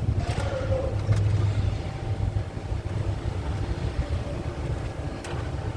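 Vehicle engine idling with a steady low hum, with a few faint clicks over it.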